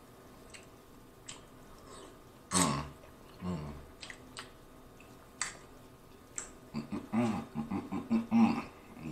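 Eating mouth sounds: scattered small wet clicks and smacks, a short throaty burp-like sound about two and a half seconds in, then a run of short closed-mouth "mm" hums near the end.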